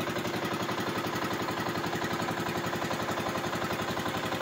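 The engine of an outrigger fishing boat running steadily under way, with a fast, even pulsing beat.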